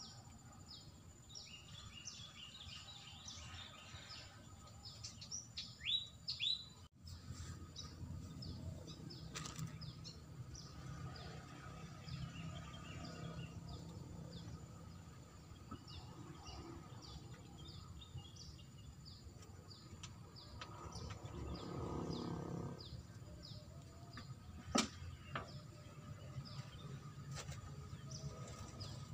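Small birds chirping over and over in short, quick, falling notes, over a steady low background hum; a broader rumble swells up briefly about two-thirds of the way through, and a single sharp click follows.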